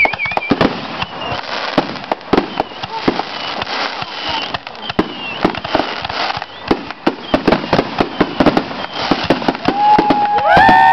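A fireworks finale with aerial shells bursting in rapid succession: a dense run of sharp bangs and reports. Near the end a long, steady high tone sounds over the bangs.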